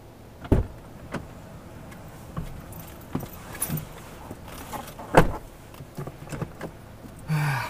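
Scattered sharp clicks and light knocks, the two loudest about half a second in and about five seconds in, with fainter ticks between.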